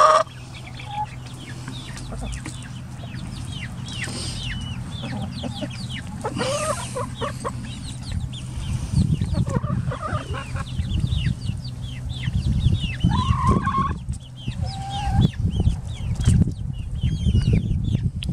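A small flock of ISA Brown and Barred Rock laying hens clucking, with many short calls and a few longer ones. A low rustling noise picks up from about eight seconds in.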